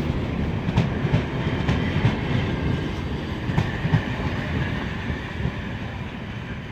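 Vintage railway passenger coaches rolling past at low speed, their wheels rumbling and knocking over the rail joints. The sound fades as the last coach passes and the train draws away.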